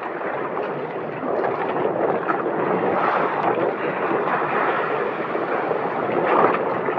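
Steady rush of wind and sea water around a bamboo-outrigger fishing boat at sea, with wind buffeting the microphone.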